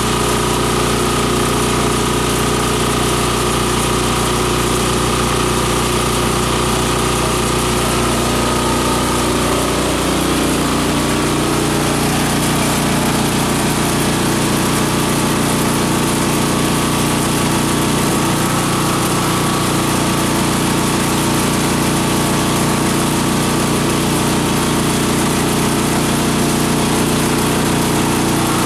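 Multi-purpose chopper-shredder-grinder machine running steadily, a continuous mechanical drone of its drive and blade rotor; its tone shifts slightly about ten seconds in.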